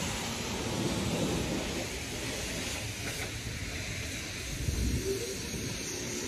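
High-pressure car wash wand spraying water onto a car, a steady hiss of spray.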